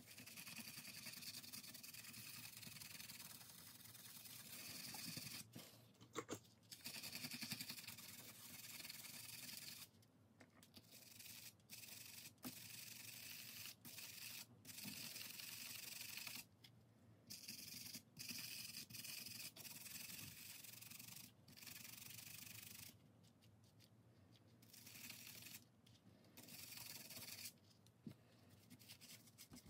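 Faint rubbing noise from hand work, in stretches of one to three seconds broken by short pauses.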